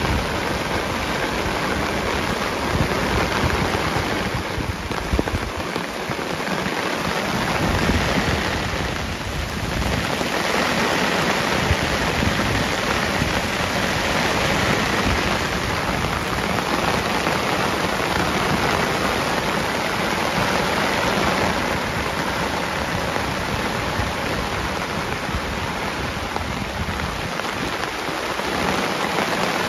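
Heavy rain pouring down: a steady, dense hiss of a downpour.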